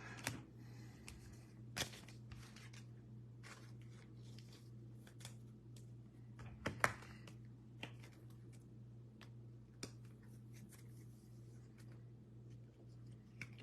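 Faint, scattered clicks and light taps from handling trading cards at a desk, over a steady low electrical hum.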